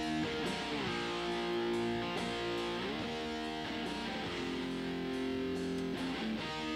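Recorded electric guitar track playing strummed chords that ring out and change every second or so, heard through a software compressor set to a 1176-style preset with fast attack and release.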